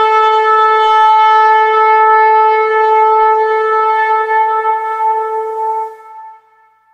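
Ram's-horn shofars blown together in one long, steady blast that fades out about six seconds in.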